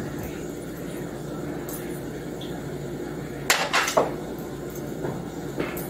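Metal bench scraper chopping down through sticks of butter onto a cutting board: three sharp knocks in quick succession about three and a half seconds in, and one more near the end, over a steady low hum.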